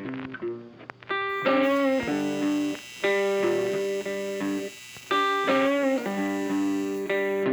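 Background music: electric guitar playing notes and bends in short phrases.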